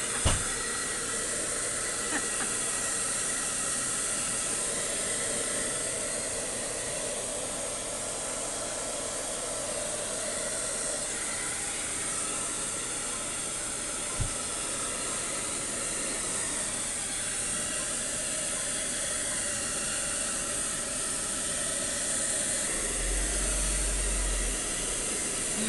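Handheld hair dryer running, blowing on a wet husky puppy's fur: a steady hiss, with a low rumble in the last few seconds.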